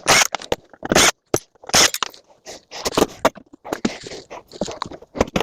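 Wiring being cut out and pulled free for scrap: irregular crunches, snips and scrapes, several a second, some sharp and loud.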